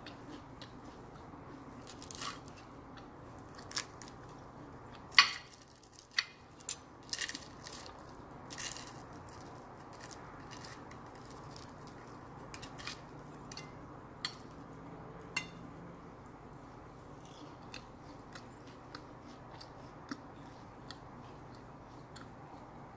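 Metal chopsticks and a spoon clicking and scraping on a ceramic plate while pulling apart a grilled mackerel, in scattered light taps. The taps come thickest and sharpest about five to nine seconds in, then thin out.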